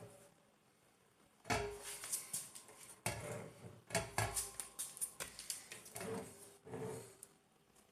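Hard objects being handled: an irregular run of clattering knocks and clicks, some with a short ringing tone, starting about a second and a half in and stopping shortly before the end.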